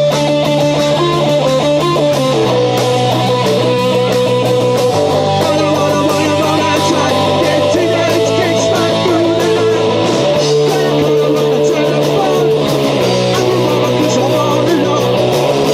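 Live rock band playing: electric guitar over bass notes that change every few seconds, with a steady drum beat.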